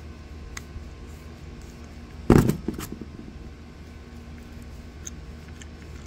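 Used metal wheel bearings and axle parts handled over a cardboard box. About two seconds in there is a sharp clatter, one loud knock followed by a few smaller knocks, over a low steady hum.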